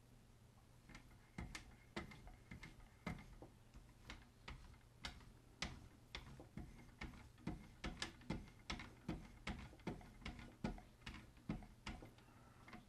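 Paddles of a Wicked Edge guided knife sharpener stroked alternately along a clamped knife blade, giving sharp, irregular clicks and taps about one to two a second.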